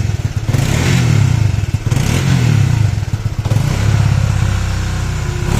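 Honda CBR150R single-cylinder engine running, blipped a few times in the first half and then idling steadily. It has a light ticking at idle from a worn clutch basket in the slipper clutch; the mechanic says the ticking stops when throttle is given.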